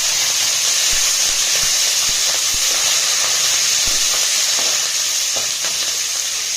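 Green chillies and curry leaves sizzling loudly in hot groundnut oil in a kadai, a steady spluttering hiss with scattered pops and crackles.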